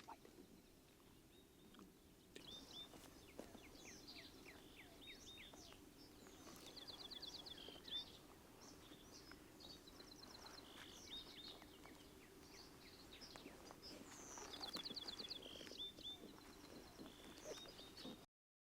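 Faint birdsong: several small birds calling, with short high chirps, quick downward whistles and rapid trills, over a quiet outdoor background. The sound cuts off abruptly near the end.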